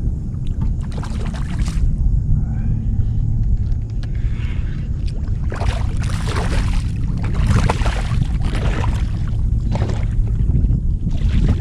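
Water sloshing and splashing around a fishing kayak over a steady low rumble, with louder bursts of splashing about halfway through and near the end while a small hooked snook is reeled in.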